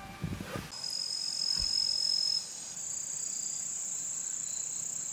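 Crickets trilling steadily in two high-pitched voices, one dropping out about halfway through, after a short rustle in the first second.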